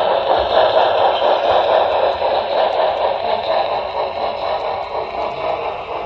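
Model train running along the track, heard up close from on board: a steady whirring rattle of its motor and wheels on the rails.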